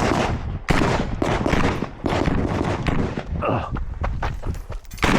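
Rifle gunfire from a PTR91 .308 semi-automatic: a string of shots in quick succession, each with a heavy echo.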